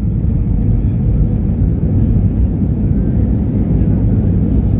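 Airbus A320 jet engines landing, a loud, steady, deep rumble.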